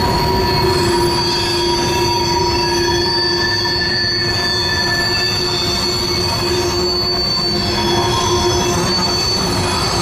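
BNSF covered hopper grain cars rolling across a steel railroad bridge, their wheels squealing in several steady high tones over a constant rumble of wheels on rail.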